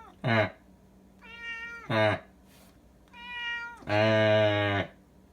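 A domestic cat meows three times, each a steady call of about half a second, and each meow is answered right away by a lower, louder meow-like call from a man's voice. The first two answers are short and falling; the last, about four seconds in, is held for about a second.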